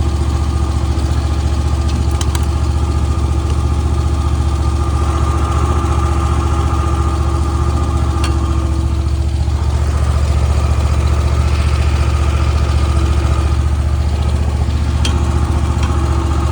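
Zero-turn riding mower's engine running steadily, a constant low drone.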